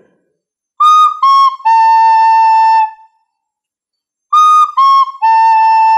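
Plastic recorder playing a three-note phrase twice: two short notes, high D and then high C, followed by a held A. There is a pause between the two times through.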